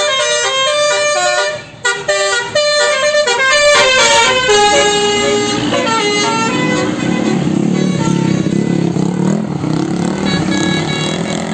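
A bus's multi-tone musical "telolet" horn playing a quick run of changing notes for about five seconds, with a short break near two seconds in. After that the bus engine runs steadily as the bus passes and pulls away.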